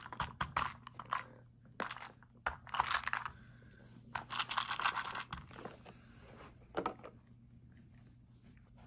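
Plastic wobble treat-dispenser toy being tipped and rocked by hand, with the dry cat treats inside it rattling in a series of irregular clicking, rustling bursts that stop about seven seconds in.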